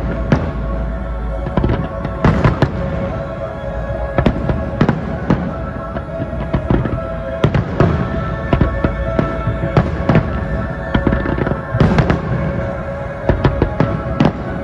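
Aerial firework shells bursting in a rapid, uneven string of bangs, several overlapping at once, over music with steady held notes.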